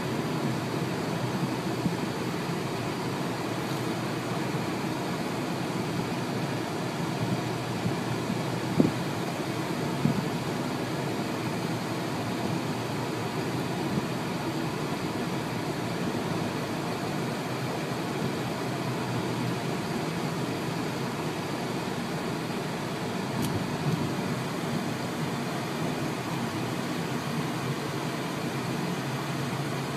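Steady road and engine noise of a car driving, with a single light knock about nine seconds in.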